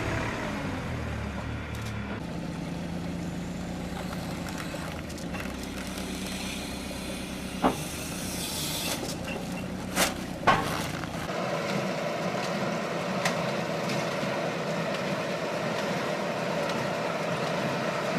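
Engine of heavy farm machinery running, with a few sharp clanks partway through; the engine sound changes abruptly twice.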